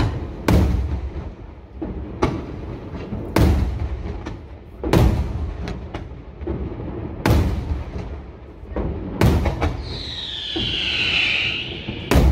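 Fireworks going off: about seven heavy booms one to two seconds apart, with lighter cracks between them. A high, wavering whistle comes in about ten seconds in.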